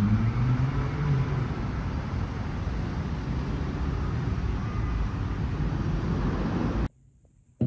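Motor vehicle noise: a steady low rumble with an engine hum that cuts off suddenly near the end.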